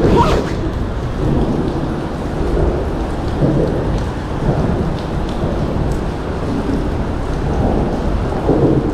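Rain and wind noise on the microphone: a steady low rumble with a few faint ticks.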